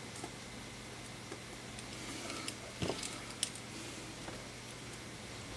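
Faint, scattered clicks and taps of small hand tools working on the internals of an opened iPhone 6S, the two sharpest about three seconds in, over a steady low electrical hum.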